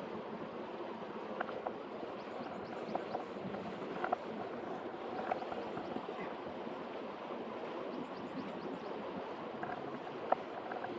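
Steady rush of flowing river water, with a few short, sharp knocks or splashes scattered through it.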